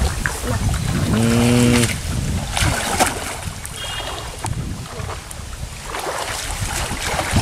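Shallow, muddy water sloshing and splashing as hands grope under the surface, with wind buffeting the microphone as a low rumble. The splashes are strongest from about two and a half to three seconds in.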